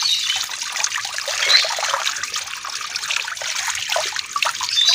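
Running tap water pouring and splashing over salted napa cabbage leaves as hands rinse them in a plastic tub. The leaves are being washed free of salt brine.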